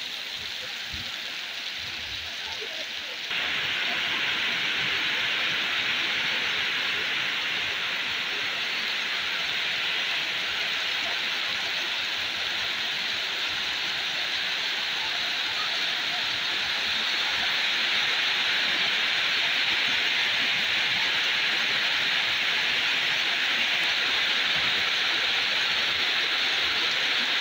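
Heavy rain pouring down: a steady hiss that gets suddenly louder about three seconds in.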